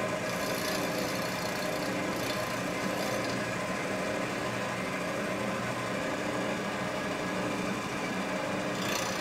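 Vertical milling machine running steadily, its end mill taking a light cut around the edge of weld buildup on a cast aluminum motorcycle engine case.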